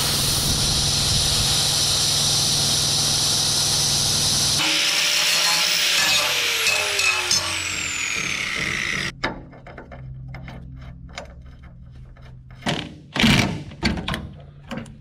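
Power tool, most likely an angle grinder, cutting a notch in a metal bumper mounting bracket with a steady loud grinding for about four and a half seconds, then switched off and spinning down with a slowly falling whine that stops abruptly about nine seconds in. Light metal clinks and handling knocks follow.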